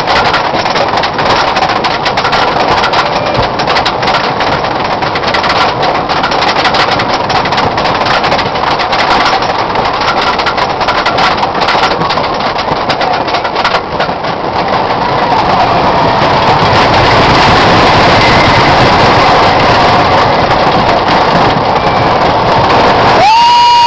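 Hurricane wooden roller coaster train running along its track: a loud, continuous rumble and clatter that grows louder about halfway through. A steady high tone cuts in just before the end.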